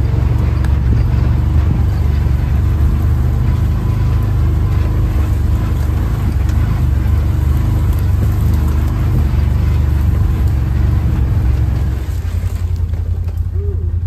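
Utility vehicle (UTV) running along a trail: a steady low engine-and-ride drone that eases slightly about twelve seconds in.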